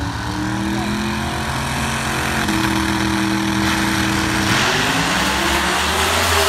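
A car engine running at a steady pitch, then rising in pitch and getting louder from about two-thirds of the way in as it accelerates.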